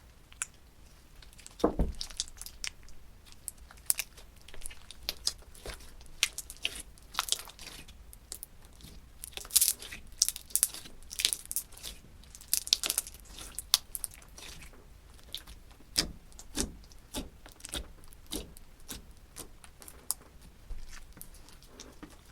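Slime being squished and stretched by hand, giving irregular sticky crackles, pops and clicks, with a few heavier squelching thumps.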